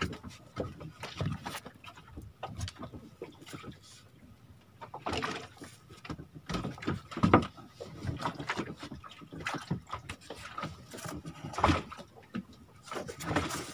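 Irregular knocks, clicks and rustling as a fishing handline is hauled in and handled on a small wooden boat, with louder knocks about five, seven and twelve seconds in.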